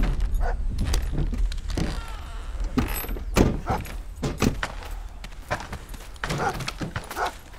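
Low rumble of a pickup truck's engine fading away, with a car door and a scatter of irregular clunks and knocks.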